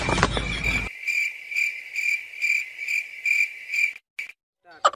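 Cricket chirping in a regular rhythm of about two to three chirps a second, starting about a second in after a short burst of noise and cutting off abruptly near the four-second mark.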